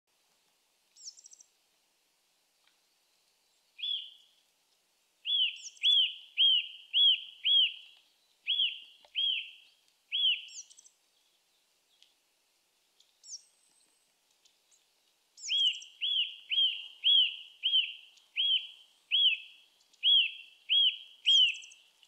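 Eurasian nuthatch singing: a clear whistled note repeated about twice a second in two long runs. A few short, higher calls fall between the runs.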